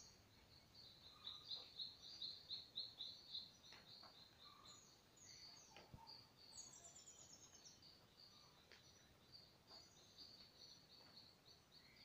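Faint dawn chorus of several wild birds: quick runs of short high chirps, loudest in the first few seconds, with a falling series of thin notes a little past halfway.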